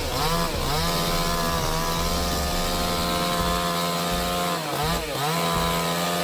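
Chainsaw running at high revs, holding a steady pitch, with brief dips in engine speed near the start and again about five seconds in.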